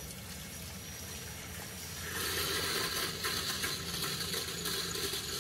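Electric fuel pump of a 2020 Ford F250 fuel pump assembly running on a 12-volt bench supply, with a low steady hum. Gasoline mixed with air bubbles rushes through the hoses and returns into the pan, and the rushing grows louder about two seconds in as the lines are being purged of air.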